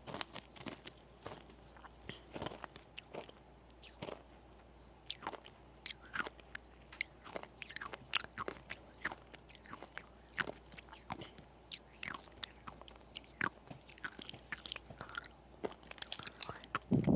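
Close-miked crunching of small hard star-shaped sugar candies (byeolsatang) being bitten and chewed, a run of sharp, irregular crunches with a louder cluster near the end.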